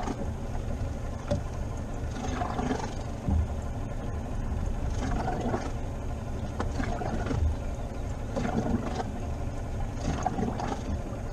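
Steady low rumble of wind and water against a small inflatable boat at sea, with scattered faint splashes and knocks.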